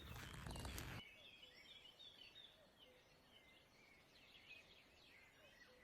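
Faint forest birdsong: many short, high chirps and twitters. A second of rustling noise at the start.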